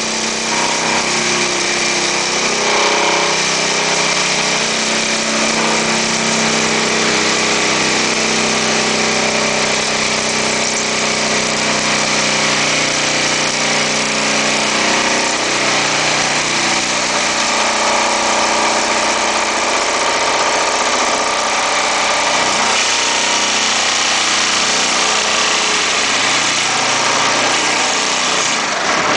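Vibratory pile hammer driving a steel H-pile, with a loud, steady machine drone and its powering engine running. The low hum shifts in pitch about halfway through.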